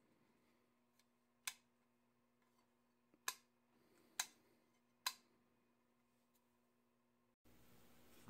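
Panel-mount single-pole, single-throw toggle switch being flipped on and off: four sharp clicks, with near silence between them.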